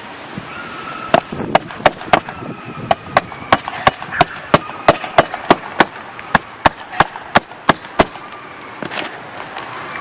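A hammer driving roofing nails through felt into the roof decking: a run of about twenty sharp strikes at roughly three a second, stopping about eight seconds in. The felt is being re-nailed because its nails had backed out, which left a bump under the shingles.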